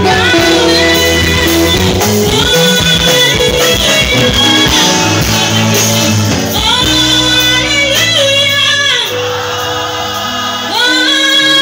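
Live gospel praise-and-worship music: a woman sings the lead over a band with drums and held low notes, with other voices joining in. The music drops a little quieter about eight seconds in and swells back just before the end.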